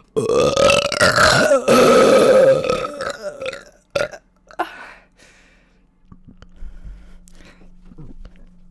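A woman burping: one long, loud burp lasting about three and a half seconds, then a short one about four seconds in. A faint steady hum follows.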